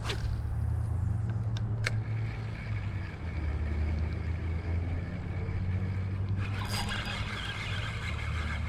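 Steady low rumble of road traffic on a nearby bridge, with a couple of sharp clicks early on and a hiss that joins about six and a half seconds in.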